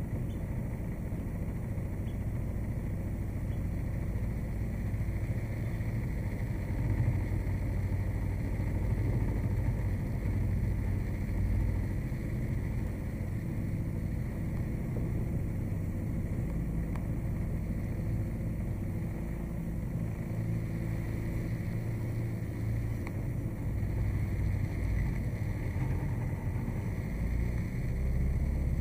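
Motorboat engine running steadily, a constant low hum.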